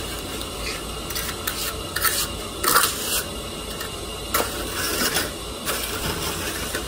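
Steel trowel scraping and smoothing a fresh concrete floor patch in short sweeping strokes, with a few light metallic clinks.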